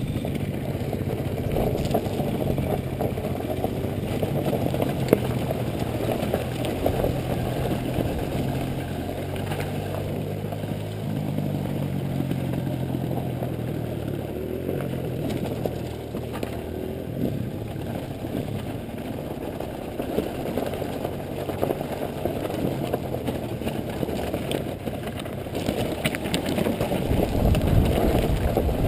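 Dirt bike engine running at low, steady revs, with rattling and clatter as the bike rolls over a rocky trail; it gets louder near the end.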